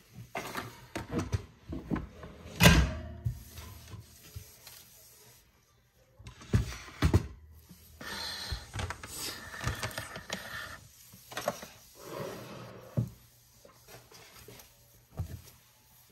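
Household handling noises: irregular knocks, bumps and clatters of things being moved and set down, with scraping and rustling in between. The loudest bang comes about three seconds in, and there is a short break just before the middle.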